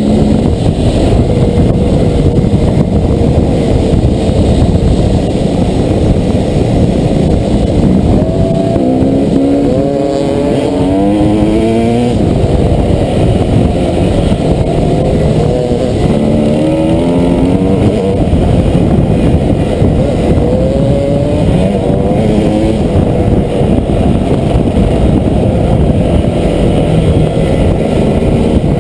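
Trail dirt bike engine running under way, heard from the rider's helmet over a dense rumble. Its note rises in stepped runs several times, most clearly about ten seconds in and again around seventeen seconds in.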